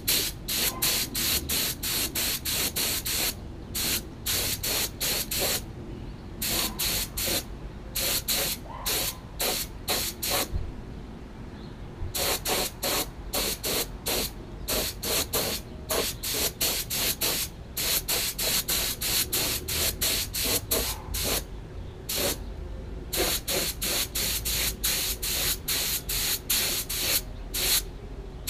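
Paint spray gun hissing in short, rapid trigger pulls, about two to three a second, as it paints a small part. There are a few brief pauses, the longest about a second and a half partway through.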